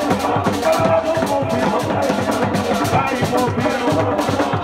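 Sufi zikr sung over a steady drum beat, with a sung line carrying the chant above the drumming.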